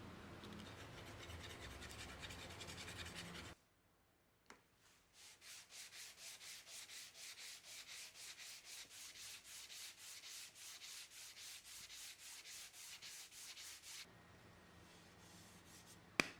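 Rapid, even rubbing strokes on wood, about four a second, as in hand sanding, running for about nine seconds after an abrupt cut from a steady hiss. Two sharp clicks near the end.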